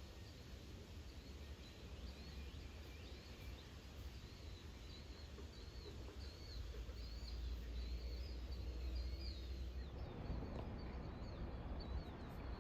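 Outdoor ambience as a thunderstorm approaches: a low wind rumble on the microphone under small birds chirping over and over. About ten seconds in, the wind noise swells and the chirping fades.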